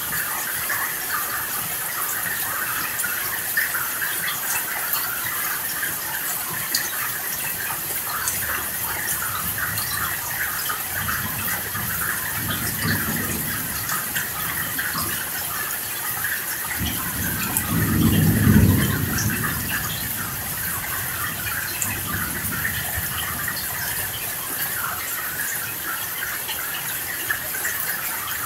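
Steady heavy rain with thunder rumbling low in the background: a soft roll about twelve seconds in and a louder roll around eighteen seconds that swells and dies away over two or three seconds.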